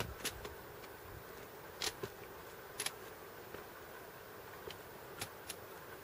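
Sharp, irregular clicks of trekking-pole tips and boots striking the stones of a rocky mountain path, about five over the few seconds, over a steady faint hum.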